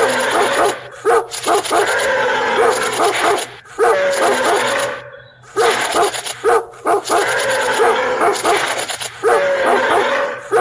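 Dog sound effect: rapid repeated yips and whimpers in runs broken by short gaps, the same pattern recurring like a loop.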